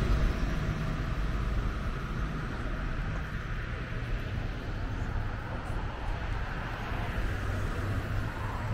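Outdoor town-street ambience: a steady low rumble with a hiss over it, typical of nearby traffic.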